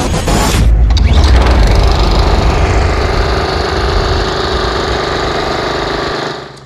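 Small petrol lawn mower engine running steadily and loudly, starting suddenly about a second in and fading out near the end.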